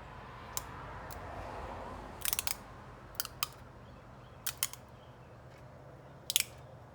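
A metal socket handled as a label is pressed onto it: a soft rubbing for the first couple of seconds, then a scattering of sharp clicks and taps, some in quick pairs.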